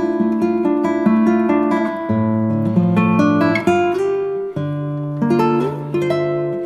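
Background music: an acoustic guitar picking a quick run of plucked notes, then settling into held bass notes and chords.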